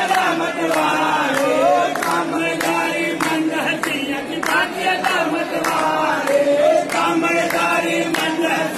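Group of voices chanting a devotional song together, with sharp percussive strikes keeping a steady beat about twice a second.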